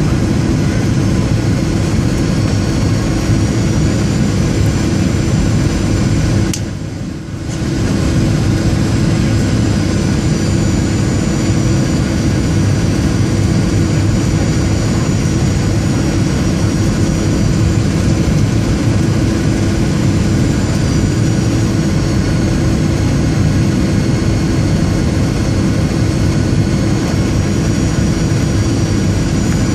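Jet airliner cabin noise on the landing approach: a steady drone of engines and airflow with a thin, high steady whine above it. The sound dips briefly about seven seconds in.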